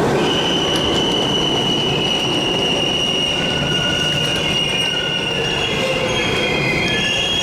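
Train rolling on rails: a steady, loud rumble with a high, steady wheel squeal above it.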